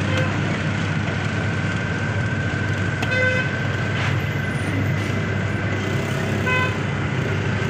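Steady low drone of the small engine driving the belt-driven peanut-roasting drum, with a thin steady whine above it. Two short vehicle horn toots cut through, about three seconds in and again a few seconds later.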